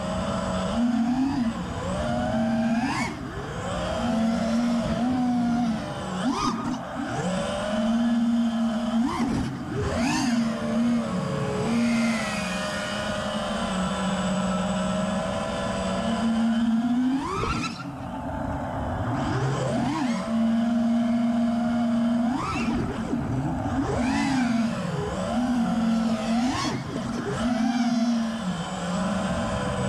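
Four brushless motors (Apex Racing Hornet 2306 2555KV) on a 5-inch FPV freestyle quadcopter, spinning HQ Ethix P3 props. They make a steady buzzing whine that sweeps sharply up in pitch and falls back again several times as the throttle is punched and eased.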